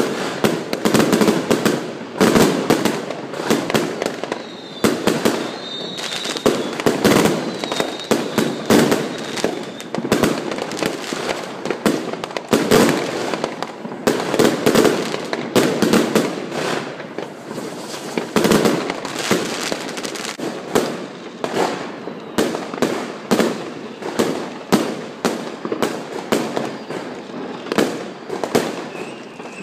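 A continuous barrage of consumer fireworks: bangs and crackles follow one another several times a second without a break. A faint high whistle runs for a few seconds from about five seconds in.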